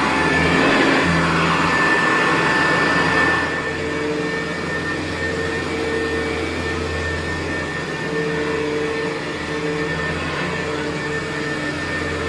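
Early-1970s Hoover U4007 upright vacuum cleaner running steadily, with a steady whine over its motor noise. About three and a half seconds in, the sound drops and carries on quieter.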